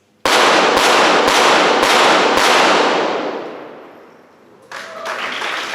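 A timed five-shot series from .22 Short rapid-fire pistols: five sharp shots about half a second apart, ringing on in the range hall after the last one. Audience applause starts near the end.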